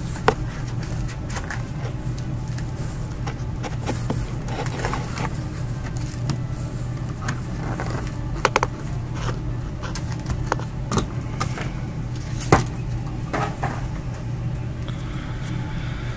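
Foil trading card packs and their cardboard box being handled and set down: scattered rustles, taps and clicks over a steady low hum.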